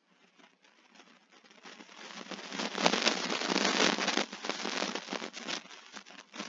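Dense, rapid crackling that fades in, is loudest a few seconds in, then thins out.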